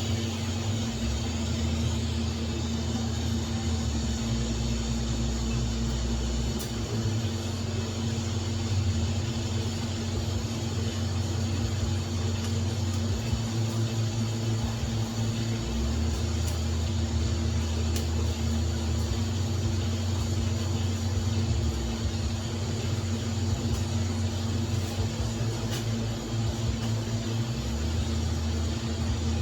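TIG welding at about 55 amps: a steady electrical buzz from the arc and welding machine, with its low part shifting a few times.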